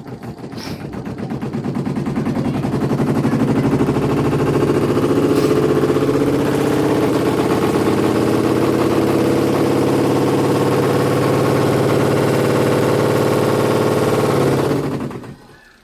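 LG semi-automatic washing machine's spin drum running with a heavy, rapid rattling-knocking noise that builds up over the first few seconds, holds steady, then stops abruptly near the end. The noise comes from a piece of clothing caught under the spin drum.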